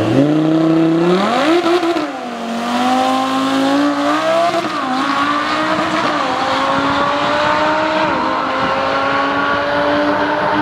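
Lamborghini Huracán's V10 launching from the drag strip start line and accelerating hard. The engine pitch climbs and drops back at three upshifts, about two, five and eight seconds in.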